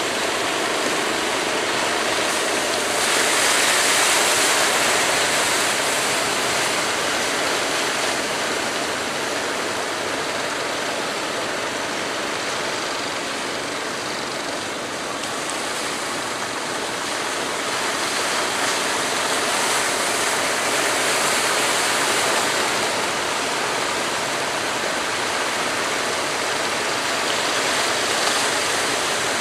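Rough surf breaking and washing in rough, choppy water: a steady rushing hiss of waves that swells louder a few seconds in and again later.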